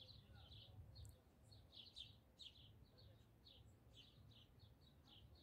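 Quiet evening outdoor ambience: faint, regular high-pitched chirping, two to three chirps a second, over a low rumble.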